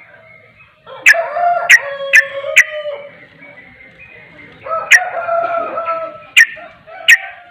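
Yellow-vented bulbul (trucukan) singing: two chattering phrases of about a second and a half each, with sharp, loud clipped notes between and after them.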